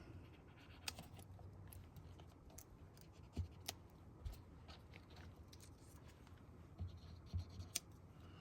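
Faint paper handling: light scratching and a dozen or so small scattered ticks as cardstock strips are pressed and glued down at the corners of a card.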